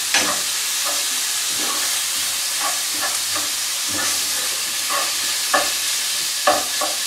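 Bacon and onion sizzling in a frying pan with a steady hiss, while a spoon stirs them, scraping and knocking against the pan every second or so. The loudest knocks come just after the start and twice near the end.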